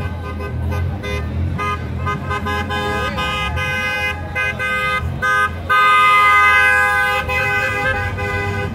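Car horns honking repeatedly in short toots, with one long blast about six seconds in that is the loudest sound, over the low rumble of passing traffic.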